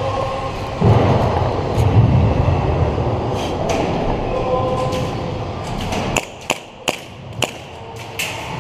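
Steady rumbling noise for about six seconds. Then it quiets and a few sharp snaps follow, less than a second apart: single shots from airsoft guns.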